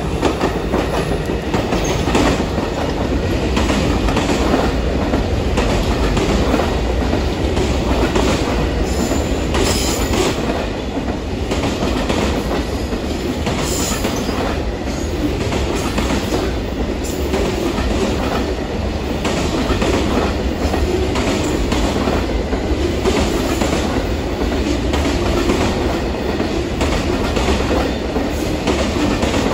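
Amtrak Auto Train rolling past close by, from bilevel Superliner cars into enclosed autorack car carriers: a steady rumble, with the steel wheels clicking over the rail joints.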